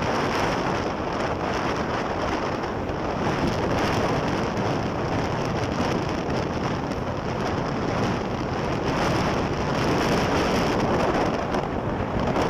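Steady rushing wind noise on the microphone mixed with tyre and traffic noise, recorded from a vehicle moving at highway speed.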